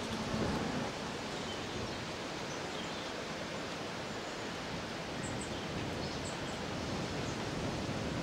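Steady outdoor background noise, an even hiss, with a few faint, short, high-pitched chirps about five to six and a half seconds in.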